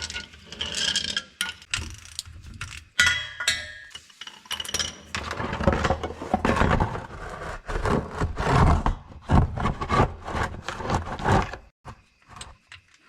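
Socket ratchet clicking as it backs out the rear differential drain plug of a Nissan R33 GT-R, with metal clinks and clatter of tool handling; the clicking comes in irregular runs and stops shortly before the end.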